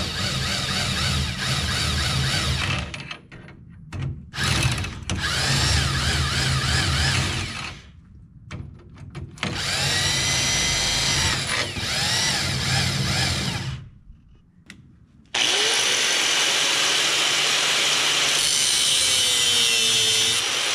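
Corded DeWalt impact wrench running the nuts onto new leaf-spring U-bolts, in three runs of a few seconds each. About three-quarters of the way through, a Hitachi angle grinder starts up and runs steadily on steel, its pitch sagging near the end as it bears into the cut.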